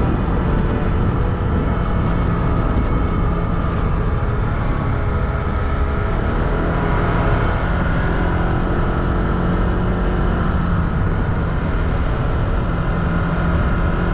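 Motorcycle engine running steadily while riding along the road.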